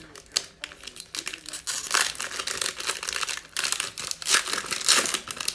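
Foil wrapper of a Panini Mosaic basketball card pack being torn open by hand, crinkling in quick irregular bursts, loudest about two seconds in and again near the end.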